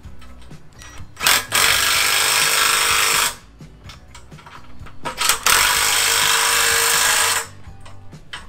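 Cordless drill boring into a steel chassis rail in two runs of about two seconds each, the first starting about a second in and the second about five seconds in, with a steady motor tone under the noise of the bit cutting. Light metal clicks and handling between the runs.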